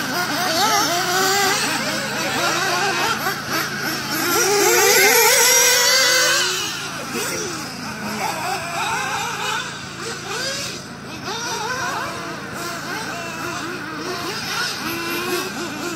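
Small engines of several radio-controlled off-road racing cars revving up and down, their high pitch wavering as they race around the track. They are loudest over the first six seconds and fainter after that.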